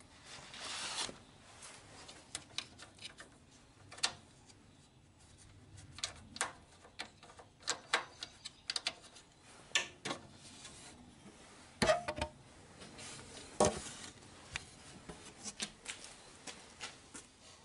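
Scattered clicks, taps and knocks with some rubbing, the sound of metal machine parts and tools being handled during assembly of a combo jointer/planer. There is a short rush of noise about a second in, and two louder knocks in the second half.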